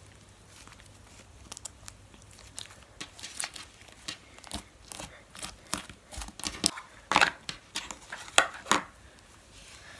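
Slime being stretched and squished by hand, making a run of short crackling pops that grow denser and louder from about three seconds in, with the loudest pops near the end.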